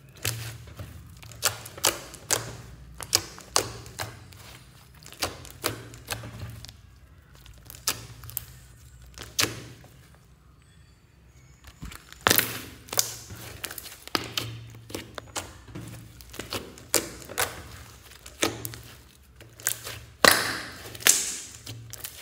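Hands kneading and pressing a large, glossy batch of mixed slime, making irregular sharp pops and clicks as air caught in the folds bursts. The loudest pops come about twelve seconds in and again near the end.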